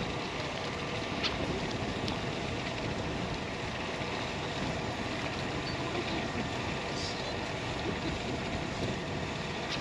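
Steady outdoor noise of wind on the microphone, with a few faint clicks.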